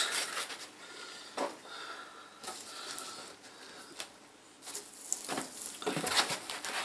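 White foam packing blocks rustling and scraping against a cardboard box as they are pulled out from around an aluminium case, with a few light taps; the rubbing comes back louder near the end.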